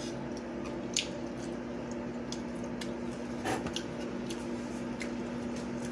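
Close-up eating sounds: chewing and wet mouth smacks with small clicks as fried seafood is picked apart by hand, over a steady low electrical hum.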